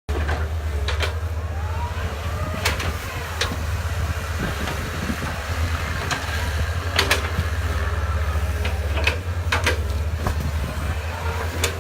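Heavy diesel machinery engine running steadily with a deep rumble, with sharp metallic clanks and knocks every second or few and a brief rising whine about two seconds in.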